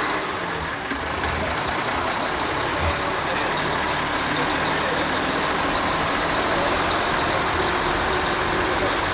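Semi tractor's diesel engine running steadily as the rig pulls slowly past, with low rumble and road noise at an even level.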